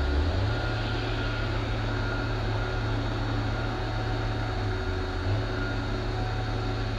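Steady low mechanical hum with an even hiss over it, like an engine or fan running, with no change in pace.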